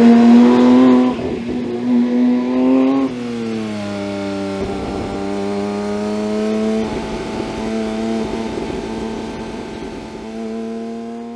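Porsche 911 S/T's naturally aspirated 4.0-litre flat-six at high revs under load, its exhaust note dropping sharply in pitch about a second in and again about three seconds in. It then settles into a steadier note that fades out near the end.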